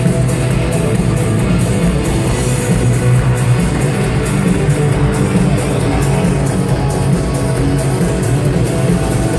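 Live guitar-driven rock music played loud through a stadium PA, recorded from inside the crowd, with a strong, steady low end.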